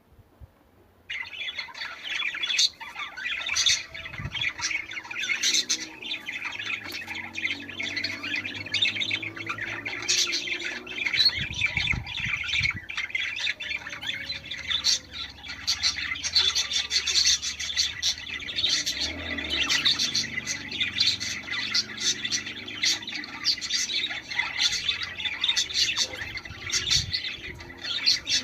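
Budgerigars chattering and warbling, a dense, unbroken run of short high chirps and squawks that starts abruptly about a second in.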